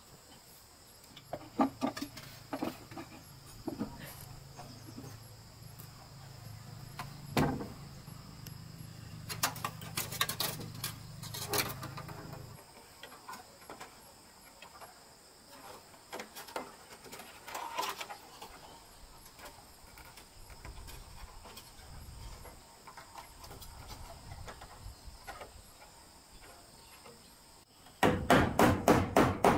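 Wooden boards and beams knock and clatter as they are handled and fitted, over a steady high insect trill. Near the end, a hammer drives a nail into a wooden beam in quick, even strikes, about four a second, and these are the loudest sounds.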